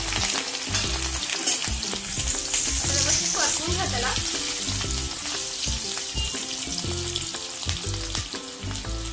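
Ginger, garlic and green chillies sizzling in hot oil in an aluminium kadhai, with a steady hiss of frying. A metal spatula stirs them partway through.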